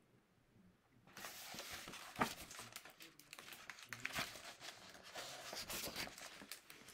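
Paper rustling and crinkling as a picture book is handled and its pages turned, starting about a second in, with a sharper rustle about two seconds in.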